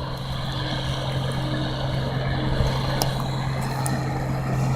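Engine of farm harvest machinery running steadily at constant speed: an even low drone with a fainter, higher steady hum above it.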